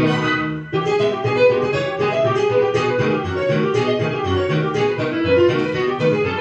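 Instrumental music playing, with a short thinning under a second in where one passage ends and the next begins.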